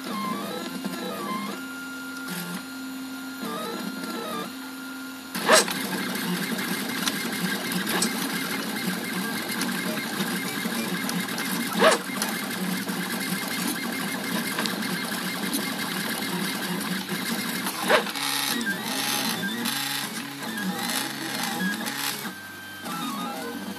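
Z-Labs 3D printer's stepper motors whining in shifting tones that glide up and down as the print head moves and changes direction. A louder, busier stretch of motion runs through the middle, punctuated by three sharp clicks about six seconds apart.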